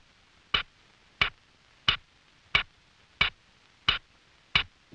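Cartoon sound effect: a steady series of short, sharp clicks, about three every two seconds, like a ticking clock.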